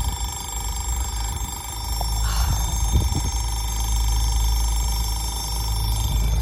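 Level crossing audible warning alarm sounding continuously, a rapid trilling tone, while the red road lights flash to warn of an approaching train. A steady low rumble runs underneath.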